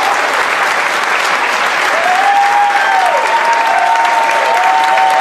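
Audience applauding steadily. From about two seconds in, long drawn-out calls from the crowd rise over the clapping, each held and then falling away.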